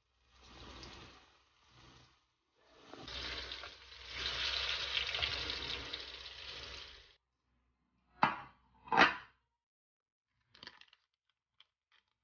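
Banana pieces deep-frying in hot oil in a wok, a hissing sizzle broken by short gaps and loudest in the middle. A couple of seconds after the sizzle stops come two sharp knocks about a second apart, the loudest sounds here, then a few faint clicks.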